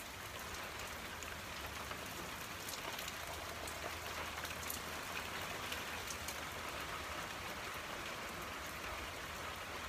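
Steady rain falling: an even hiss with scattered single drops ticking through it.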